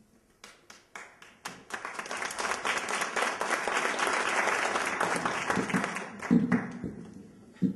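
Audience applause: a few scattered claps about half a second in that quickly build into full clapping, then die away near the end.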